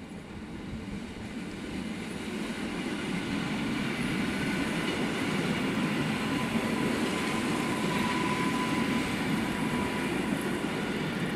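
EN57FPS electric multiple unit passing at speed: the rumble of its wheels on the rails grows louder over the first few seconds as it approaches, then holds steady as the cars go by, with a faint steady whine above it.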